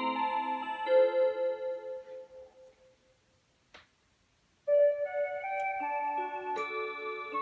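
Seiko musical wall clock playing an electronic melody while its dial rotates. The tune dies away about three seconds in, a single click sounds in the short pause, and a new tune starts up at about four and a half seconds.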